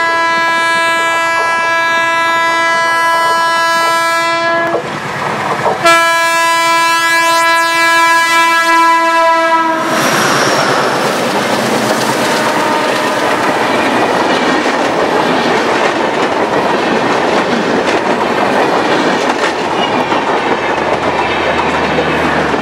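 A locomotive horn sounds two long blasts of about four seconds each, with a short break between. Then an Indian Railways double-decker passenger train hauled by a WDP-3A diesel locomotive passes close by, its wheels clattering steadily over the rail joints with a loud rushing rumble.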